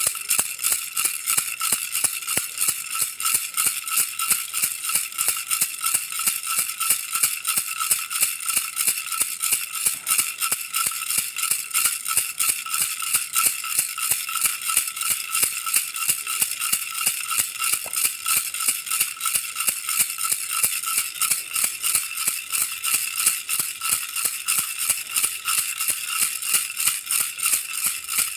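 Baby rattle toy shaken steadily and rapidly, a bright rattling that repeats several times a second without pause.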